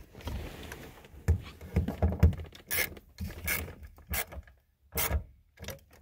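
A screwdriver working at a car's rear-view mirror mount on the windshield: a string of short, irregular clicks and knocks.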